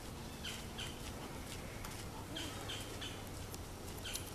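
Birds chirping faintly: several short, scattered calls over a steady low background hum.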